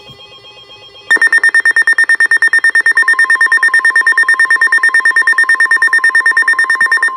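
A weather alert radio's alarm going off, with loud, rapid high-pitched beeping that starts about a second in. About three seconds in, the steady NOAA Weather Radio 1050 Hz warning tone joins it. The beeping cuts off at the end and the steady tone carries on, signalling an incoming warning broadcast.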